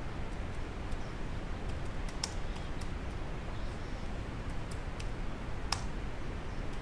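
Typing on a computer keyboard: a scattering of light key clicks, with two louder key strikes about two seconds in and toward the end, over a steady hiss.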